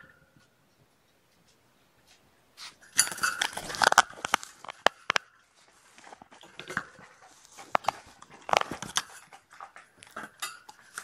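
A kitten rubbing and nuzzling against the webcam: after a couple of quiet seconds, close, loud, irregular scratching and rustling of fur on the camera, with sharp clicks and knocks.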